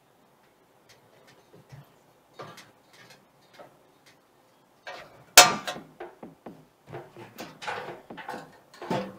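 Metal clicks and knocks from a charcoal kettle grill being handled. About five seconds in there is one loud clank as the lid comes off, followed by more clattering of metal.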